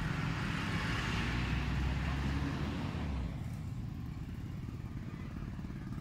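A motor vehicle engine running close by, its noise swelling over the first couple of seconds and fading after about three seconds, as if it passes.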